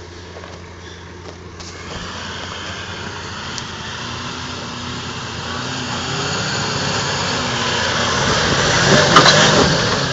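Toyota LandCruiser 79-series ute's engine working as it crawls over rocks, getting steadily louder as it approaches. About nine seconds in comes a brief cluster of sharp knocks, the diff slapping on rock.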